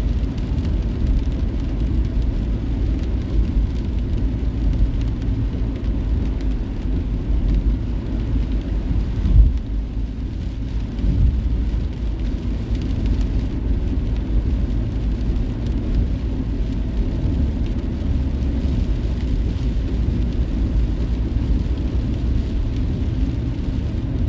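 A car driving along the road: steady low rumble of road and engine noise, with a single thump about nine seconds in.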